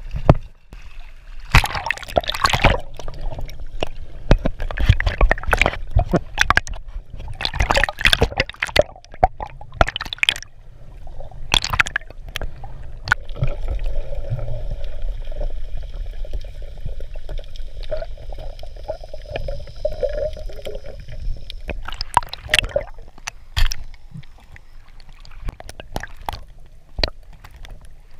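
Sea water sloshing and gurgling around a camera held at and under the surface while swimming, in irregular splashy bursts. A faint steady whine holds for several seconds midway, under muffled underwater sound.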